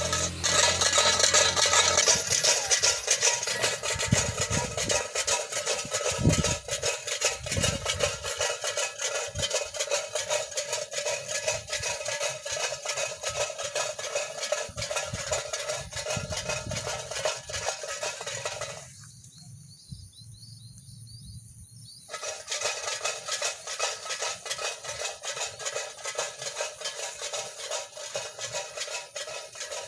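Tin cans filled with small stones clattering and rattling continuously as a rope line jerks them, a bird scarer for a rice paddy. The rattling stops for about three seconds a little past the middle, then resumes.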